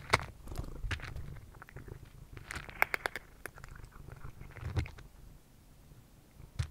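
Cat chewing dry kibble close to the microphone: irregular crisp crunches, with a quick flurry about three seconds in and a short lull near the end.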